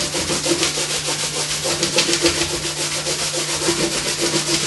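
Dried masking fluid being rubbed off watercolour paper: a dry rubbing sound in quick, even strokes, several a second. A steady low hum sits underneath.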